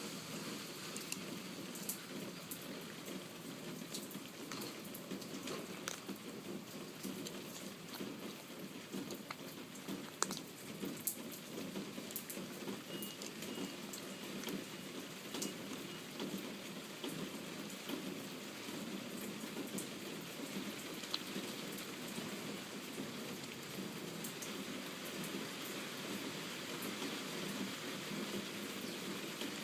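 Steady rain falling, with scattered sharp drop ticks.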